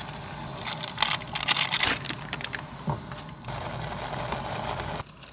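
Instant ramyeon boiling in an aluminium pot: steady bubbling with irregular clicks and clatter, as ingredients go in and chopsticks stir the noodles.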